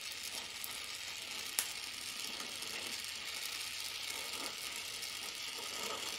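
Oxy-acetylene welding torch flame hissing steadily against the steel, with one sharp click about a second and a half in.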